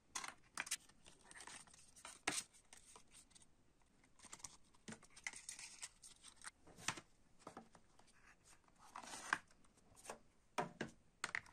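Quiet handling of a fold-out paper booklet, a plastic cassette and a CD jewel case: paper rustling and scattered small plastic clicks and taps.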